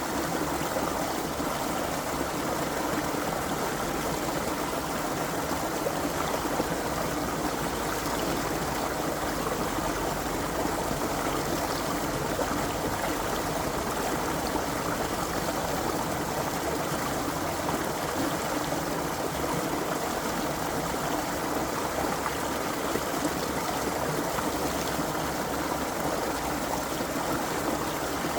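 Creek water flowing and babbling over stones in a steady, even rush, with no breaks or changes.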